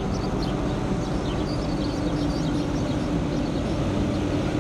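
Engines of heavy armored military vehicles running steadily as a convoy drives slowly past at close range, with a constant low hum. Faint high chirps sound over the first three seconds.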